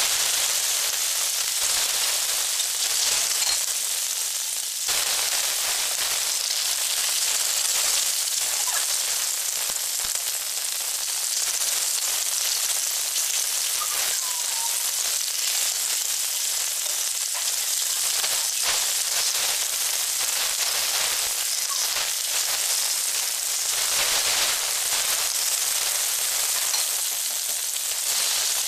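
Hilsa fish steaks sizzling steadily as they shallow-fry in hot oil in an aluminium kadai.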